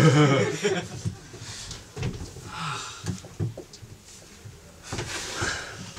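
Scattered light knocks and shuffles from actors moving about a small stage and handling props, with a short voice at the start and faint voices in between, in a small, lively room.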